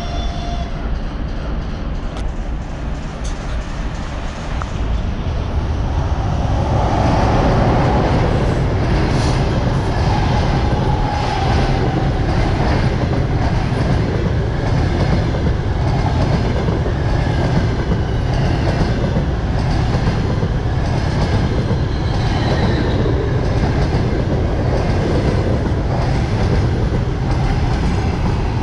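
A passenger train hauled by an EP20 electric locomotive passing close at speed. The sound swells as the train approaches and is loudest about seven seconds in, then the coaches keep running by with a steady rhythmic clickety-clack of wheels over the rail joints.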